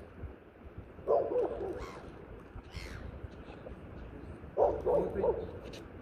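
Gulls giving harsh squawking calls in two short bursts, one about a second in and another near the end.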